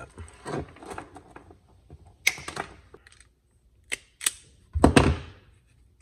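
Irregular clicks and knocks of small LED lights and their wires being handled on a wooden workbench, with a louder thump about five seconds in.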